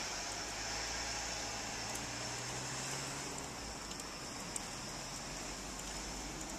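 An SUV driving past on a snow-covered street: a low engine hum and tyres on snow that fade out about three and a half seconds in, over a steady hiss.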